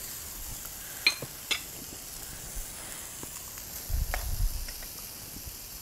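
Food sizzling in a frying pan, a steady hiss, with two light clinks of a utensil about a second in and a low bump around the four-second mark.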